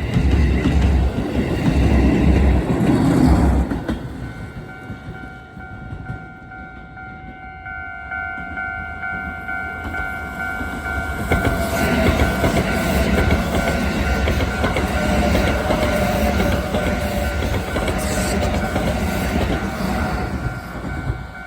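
Electric commuter train running past, its wheels clattering over rail joints; the noise dies down after about four seconds, a steady two-note tone sounds from then on, and a train's running noise with wheel clatter builds again from about halfway.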